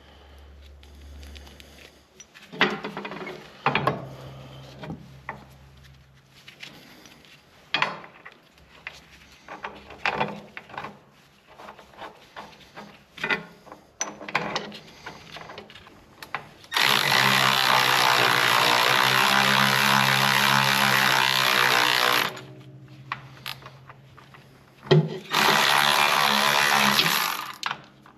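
Handheld power drill running in two steady bursts, one of about five seconds and a shorter one of about two and a half seconds near the end. Before them, scattered clinks and knocks of tools and metal parts.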